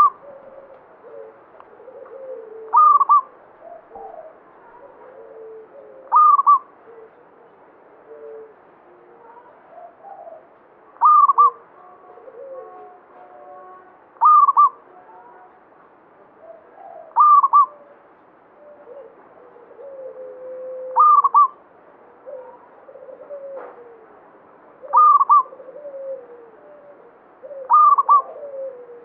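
Local zebra dove (perkutut) singing steadily: a short, loud, high cooing phrase repeated about every three to four seconds, nine times, with softer, lower call notes in between.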